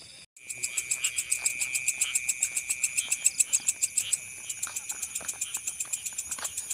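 Night chorus of frogs and insects calling in a rice field: a steady high trill under a rapid pulsing call of about seven pulses a second. It cuts in abruptly a moment in and eases off a little after about four seconds.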